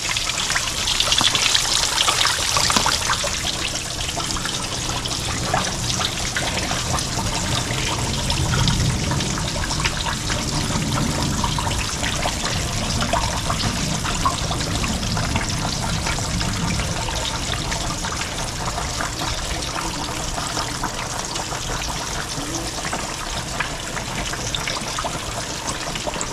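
Batter-coated speckled trout frying in hot grease: a steady sizzle full of fine crackles, loudest in the first few seconds.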